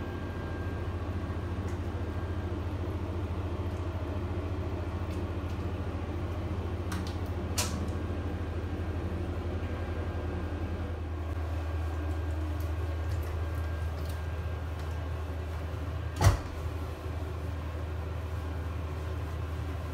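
A steady low hum fills the small tiled bathroom. About three-quarters of the way through, a single sharp knock comes from the folding plastic bath door as it is opened, with a fainter click earlier on.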